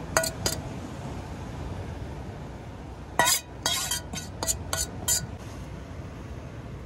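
Metal utensils scraping and clinking against a metal frying pan as the last of the sauce is scraped out. There are two clinks just after the start, then a quick run of scrapes and knocks with a short metallic ring from about three to five seconds in.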